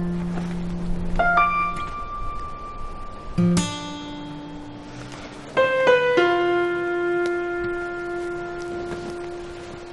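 Slow soundtrack music: single keyboard notes struck a couple of seconds apart, each held and slowly fading.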